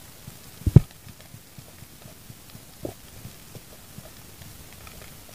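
Muffled knocks and bumps heard underwater: one loud low thump just under a second in, a weaker one near three seconds, and faint irregular knocking between.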